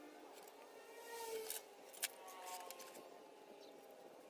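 Faint scraping and rubbing of a marker and metal ruler being worked over a styrofoam sheet, with a sharp tap about two seconds in.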